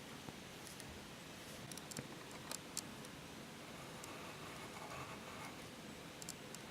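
Faint scratching of an HB graphite pencil sketching on paper, with a few light ticks two to three seconds in.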